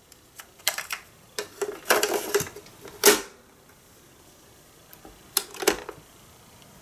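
Clicks and plastic clatter from handling a cassette and the 1970 Magnavox cassette player's controls: a run of small clacks, then one sharp clack about three seconds in as the cassette compartment door snaps shut, then a couple of clicks near the end as the top lever control is turned.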